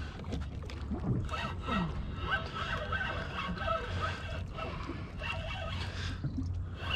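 Low wind rumble on the microphone over water lapping around a small boat, with faint voices in the background.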